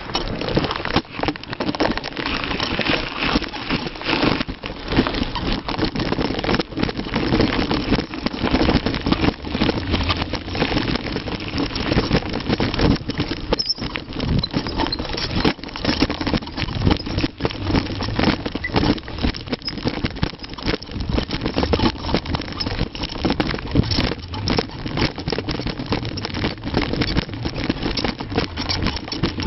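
Mountain bike descending a trail at speed: a continuous rush of riding noise with frequent rattles and knocks from the bike over the ground.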